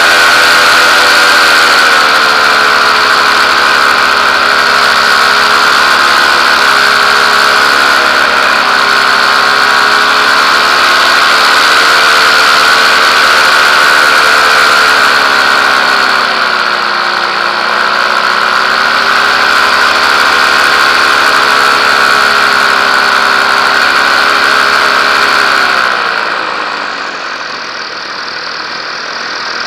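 Paramotor engine running steadily in flight, with its propeller hum strong. The pitch dips briefly about halfway, and near the end the pitch and level drop as it throttles back.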